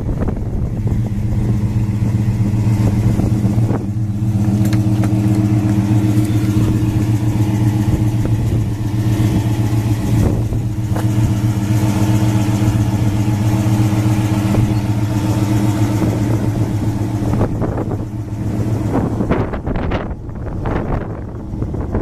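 An engine running steadily at an even pitch from about a second in, stopping near the end, with wind on the microphone.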